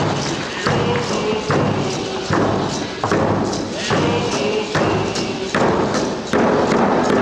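Hand-held hide frame drum beaten in a steady beat, a little over one stroke a second, with voices singing along.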